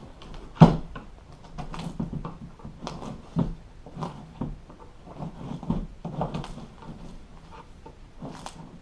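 Staples being pried out of a plastic seat base with a hand tool: irregular clicks, scrapes and knocks, with one sharp snap about half a second in.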